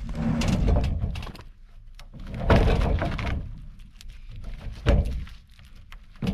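Rough-sawn wooden slabs knocking, scraping and clattering as they are handled and pulled off a freshly milled log. There are three bouts: one at the start, the loudest about two and a half seconds in, and a short sharp knock near five seconds.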